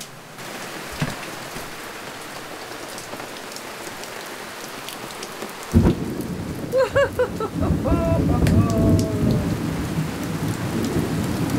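Heavy tropical rain falling steadily, then about six seconds in a sudden loud clap of thunder that keeps rumbling on.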